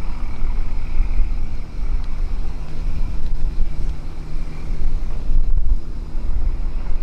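Wind rumbling on the microphone over a low, steady engine-like drone.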